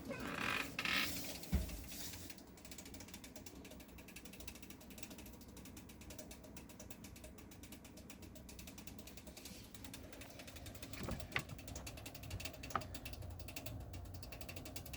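A PC's automatic voltage regulator (AVR) clicking rapidly and steadily, a fast ratchet-like chatter of its switching relays, with a thump about a second and a half in and two sharper clicks near the end.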